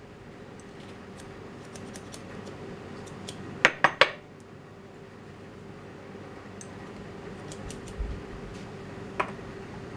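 Small brass model steam engine parts, pistons and cylinders, clinking and clicking against each other as they are handled and fitted together by hand, with three sharp clinks close together about four seconds in and another near the end. A steady workshop hum runs underneath.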